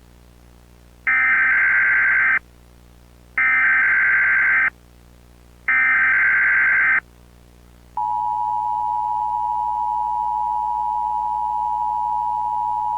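Emergency Alert System broadcast tones: three screeching digital data bursts (the SAME header), each about a second and a half long and a second apart. About eight seconds in, the steady two-tone EAS attention signal begins.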